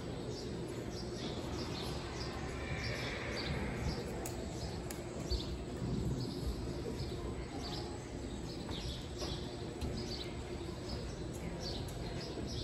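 Small birds chirping again and again in short, falling high calls over a steady low background noise.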